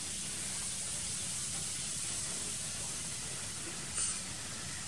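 A steady high hiss of background noise, with one short sharp sound about four seconds in.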